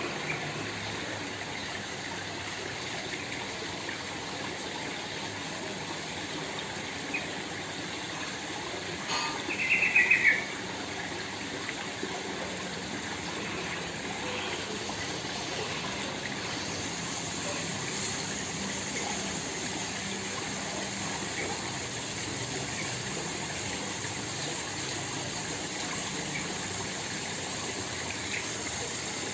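Small waterfall splashing steadily, with a bird's short, rapid trill about nine seconds in.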